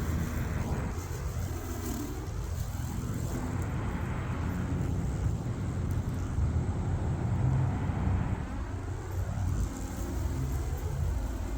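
Steady low rumble of road traffic passing close by, cars sweeping past one after another, over the quieter run of a battery-powered remote-control mower cutting grass on the bank.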